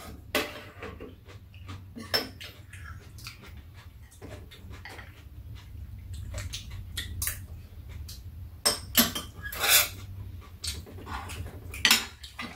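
Metal spoons and chopsticks clinking and scraping against bowls and a frying pan during a meal, a run of short clicks with the loudest about nine to ten seconds in. A low steady hum runs underneath.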